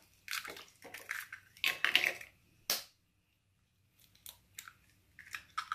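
Eggs being cracked by hand into a container: several short cracks and crunches of eggshell in the first three seconds, the last one sharp, then a few faint ticks of shell near the end.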